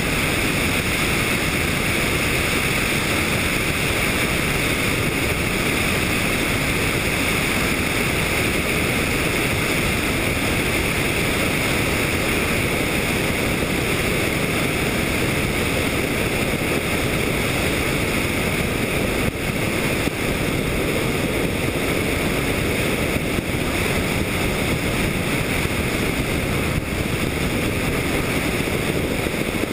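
Helicopter in flight: a steady, unchanging engine and rotor noise picked up by an onboard camera.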